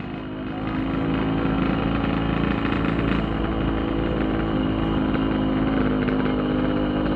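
Yamaha RX-King's single-cylinder two-stroke engine running as the motorcycle is ridden, heard from on the bike; its level picks up about a second in as the rider pulls away, then holds steady.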